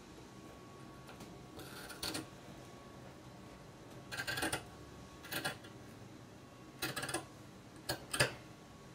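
Scissors cutting across jute burlap: about five short snips at uneven intervals, the first about two seconds in.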